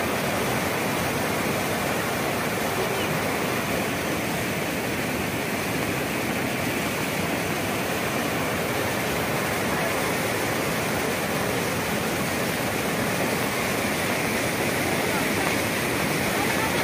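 Floodwater torrent rushing past and over a concrete embankment, a steady, even noise with no let-up.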